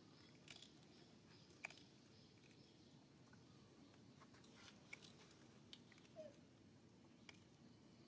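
Near silence: faint steady background hum with a few scattered soft clicks and one brief faint squeak about six seconds in.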